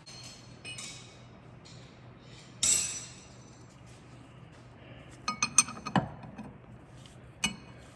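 Wrench and screwdriver clinking against a strut's top nut and shaft as the nut is worked loose: a few sharp ringing metal clinks, a loud one about three seconds in and a quick run of them around five to six seconds.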